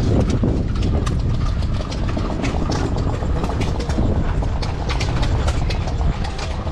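A steady, loud, low engine rumble with irregular sharp clicks over it.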